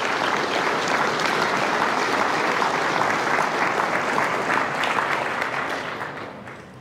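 A large seated audience applauding, many hands clapping together, dying away near the end.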